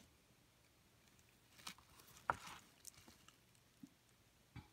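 Faint handling sounds: a handful of soft taps and rustles as a cigar is lifted out of its box and held in the fingers, with near silence between them.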